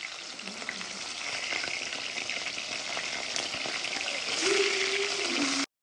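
Food frying in hot oil: a steady crackling sizzle that grows slightly louder, with a brief low tone near the end, then cuts off suddenly.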